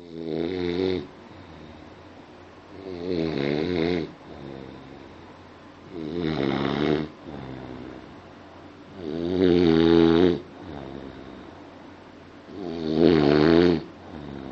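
A person snoring in a steady rhythm: five loud snores about three seconds apart, each lasting about a second, with softer breathing between them.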